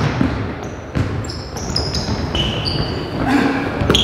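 Basketball dribbled on a hardwood court, with thuds of the ball near the start and about a second in, then a run of short, high-pitched sneaker squeaks on the wooden floor through the second half.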